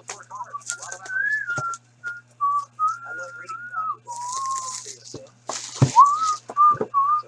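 A person whistling a tune: a string of short and held notes that wander up and down, with a quick upward slide about six seconds in. A few clicks and rustles of handling come through between the notes.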